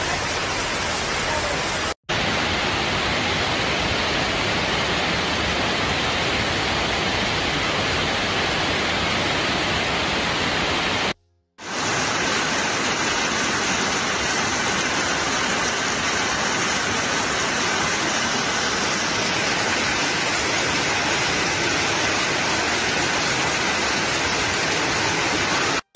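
Steady rushing of a muddy flash-flood torrent pouring through a street and channel. The sound drops out for a moment about two seconds in and again near the middle, where separate recordings are joined.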